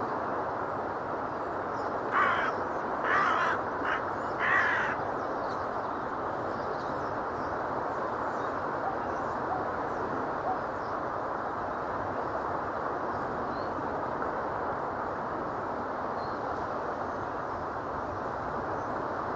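Gulls calling: four short, harsh calls in quick succession between about two and five seconds in, over a steady rushing noise.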